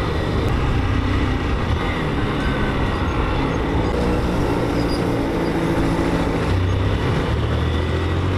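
Motorcycle engine running at low road speed, its pitch stepping up and down several times as the throttle changes, over a steady rush of noise.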